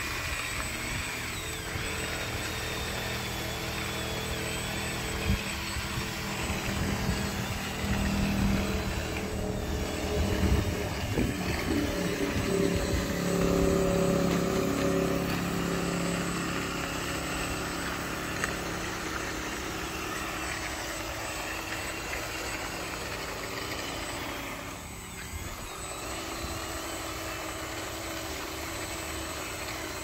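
Electric motors and plastic gearboxes of radio-controlled model vehicles whining as a toy bulldozer pushes a stuck toy dump truck through mud. The motor sound grows louder for several seconds in the first half, then eases back to a steady whine.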